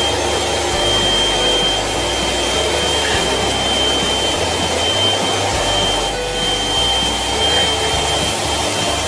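Vacuum cleaner running steadily, a constant high whine over the rush of air, as its floor nozzle is passed over a cat's fur.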